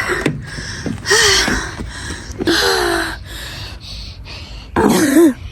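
A person breathing hard and gasping, out of breath and tired from exertion, with a few short voiced sighs between the breaths.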